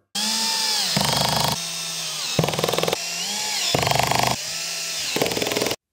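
Cordless drill/driver driving screw dowels into particleboard panels. The motor whine dips in pitch under load and alternates several times with a rapid clicking, the clutch slipping as each dowel seats.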